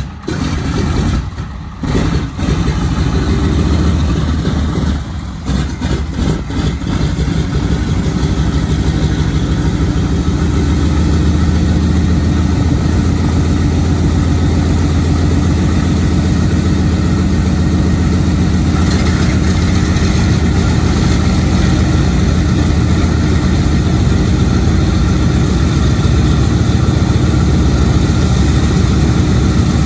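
A B-17G Flying Fortress's Wright R-1820 Cyclone radial engine starting. It catches abruptly and fires unevenly for the first several seconds, then settles into a steady idle.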